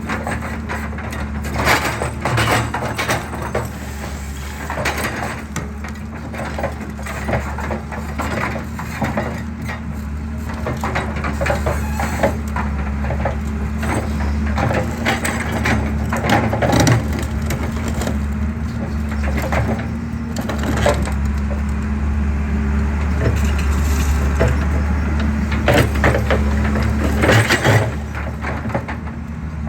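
Excavator crushing concrete: its engine runs with a steady low drone under irregular cracking and crunching as the concrete breaks apart.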